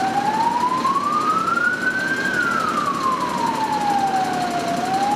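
Emergency vehicle siren sounding a slow wail: the pitch rises for about two seconds, falls for about two and a half, then starts to rise again near the end.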